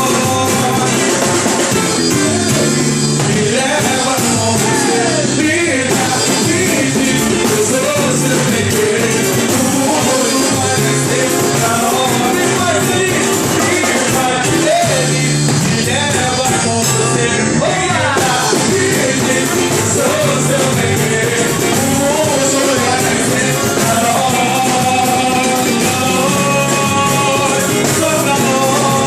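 A small band playing live with a sung lead vocal: drum kit keeping a steady beat under bass and viola (guitar).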